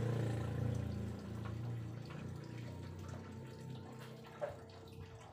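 Cat lapping water from a bowl: soft, wet laps and ticks. A low hum fades over the first couple of seconds, and there is one sharper click about four seconds in.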